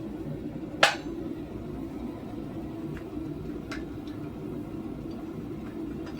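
One sharp metallic clink about a second in, the loudest sound, then two lighter clicks a few seconds later: metal tools or the workpiece knocking in a blacksmith's shop. A steady low hum runs underneath.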